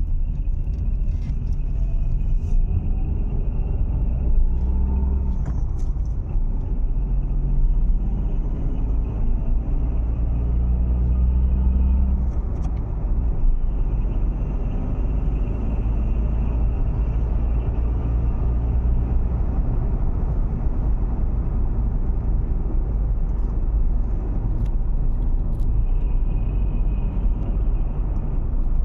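Dacia Sandero III's engine running with a steady low rumble, its pitch shifting a little in the first few seconds. This is the noise the owner suspects is an engine fault.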